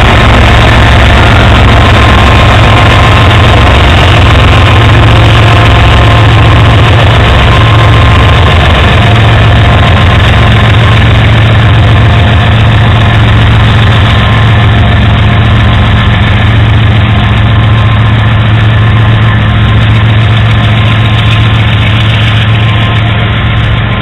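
CSX diesel-electric freight locomotives passing at close range, their engines a loud steady drone. The sound eases a little near the end as the locomotives move away and the double-stack container cars roll by.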